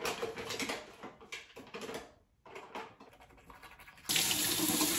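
Bursts of rustling, scratching strokes with short gaps as long hair is worked over while bent forward. About four seconds in, a steady, louder hiss starts abruptly.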